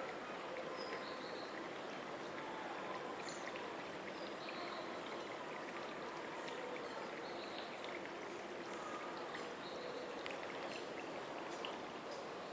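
Steady rushing of water, like a garden fountain or stream, with faint scattered bird chirps over it.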